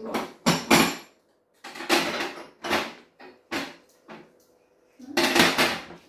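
Metal pan supports of a gas hob being lifted off and set down, clanking against the hob in a series of separate knocks.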